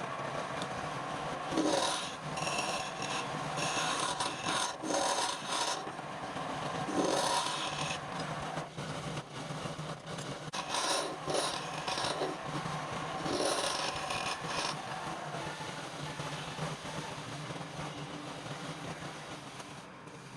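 Wood being rasped in repeated strokes, each one a rough scraping that comes every second or two, over a steady low hum. The strokes thin out and fade in the last few seconds.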